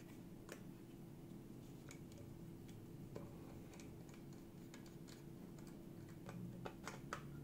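Faint, scattered small clicks and ticks of a precision screwdriver and screws against a small perforated metal case as the screws are driven in, with a cluster of clicks near the end. A low steady hum sits underneath.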